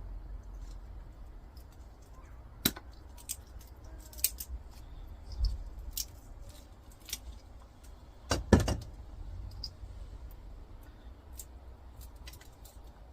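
Hand snips cutting through plastic and tape on a small copper transformer winding: scattered sharp snips and clicks at irregular intervals, the loudest pair about eight and a half seconds in.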